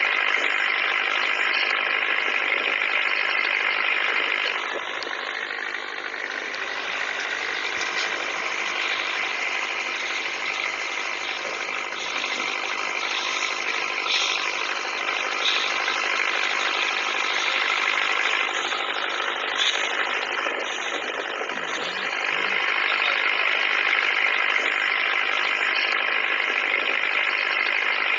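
Toy pop-pop steam boat running: its little boiler engine puttering with a steady, fast rattling putt-putt, louder near the start and again near the end.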